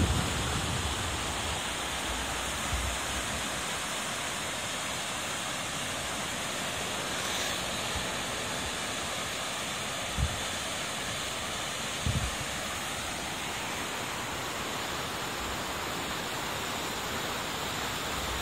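Steady rush of the Katsura River in flood, swollen with muddy water after heavy rain and running fast past the bridge. A couple of brief low thumps sound near the middle.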